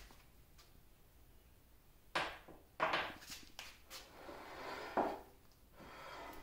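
Cast-iron cross slide of a 1950 LeBlond Regal 17-inch lathe being worked loose and slid off its ways by hand. Several metal clunks and knocks come about two to four seconds in, then a scraping slide with a sharp knock around five seconds.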